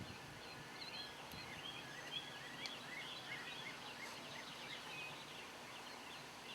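Many birds chirping and chattering at once: a continuous chorus of short, overlapping calls, fairly faint.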